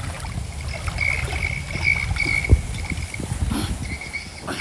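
Muddy water sloshing and splashing around a man wading chest-deep while he fights a hooked fish on a bent bamboo pole, with one sharper knock about halfway through and a thin high tone that comes and goes.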